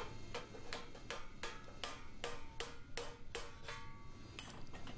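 Hammer tapping a worn screwdriver used as a drift to force a sheet-steel panel into place: a steady run of light metallic taps, about three a second, each with a short ring.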